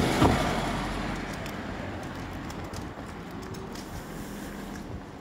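A car driving past close by on a narrow street: tyre and engine noise loudest at the start, then fading steadily over the next few seconds as it moves away.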